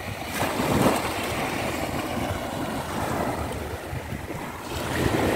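Small waves breaking and washing up a sandy shore: a steady surf noise, with wind on the microphone.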